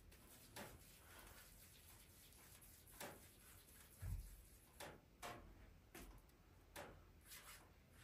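Very faint, short sticky smacks and clicks of soft yeast dough being pinched off and rolled into balls by hand, roughly one a second, with a soft low thump about four seconds in.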